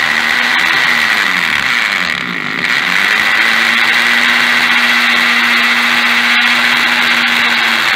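Hammer drill with a 5/32-inch masonry bit drilling into a concrete slab. Its motor pitch sags and recovers between about one and three seconds in, then it runs steadily until just before the end.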